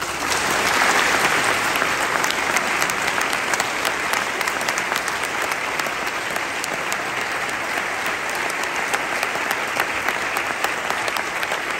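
Large audience clapping, breaking out suddenly and then staying dense and steady.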